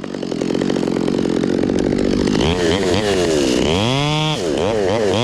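Two-stroke chainsaw running, a steady buzz at first. From about halfway in, its engine pitch rises and dips repeatedly as it is revved and loaded in the cut.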